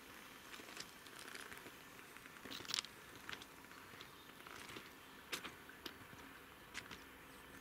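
Faint footsteps crunching on gravel railway ballast: a handful of irregular short crunches and clicks, the sharpest about a third of the way in and again past the middle.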